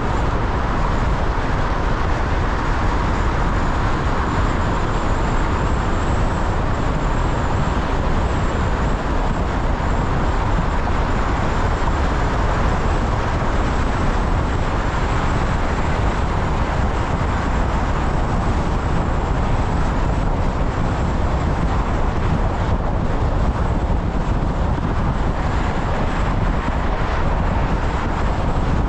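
Car driving at highway speed: steady road and tyre noise.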